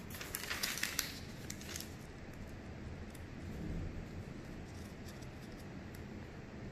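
Thin Bible pages being turned by hand: a quick run of papery rustles for about the first two seconds, then faint handling noise.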